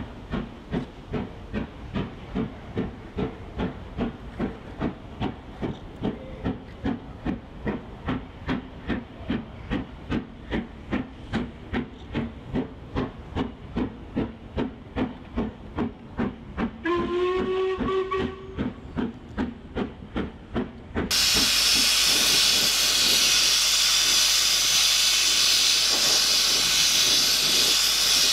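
Steam locomotive puffing in a steady rhythm of about two or three exhaust beats a second, with a short steam whistle blast that rises and then holds, about two-thirds of the way through. Then a sudden switch to the steady hiss of a gas torch flame heating a rod.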